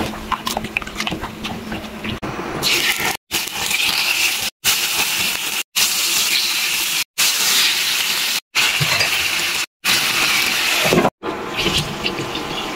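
Hands squishing pork belly in a wet marinade, then pork belly slices sizzling and crackling in hot oil in a frying pan. The sizzle comes in short stretches of about a second each, cut off by brief silent gaps.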